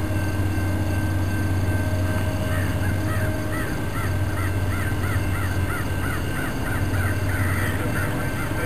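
Freight train cars rolling past with a steady low rumble. From about two and a half seconds in, a bird calls over it in a quick run of short, repeated calls for several seconds.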